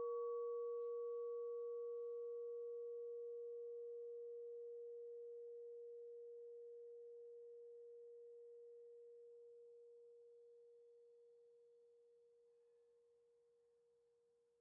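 Church bell ringing out after its last strike, with no new strike: one low hum fading slowly away, the brighter overtones dying out within the first few seconds.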